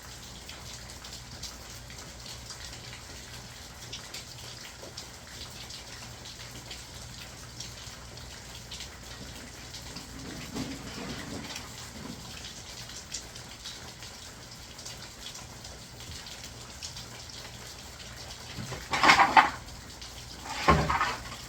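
Steady rain falling. Near the end, two loud clattering knocks about two seconds apart.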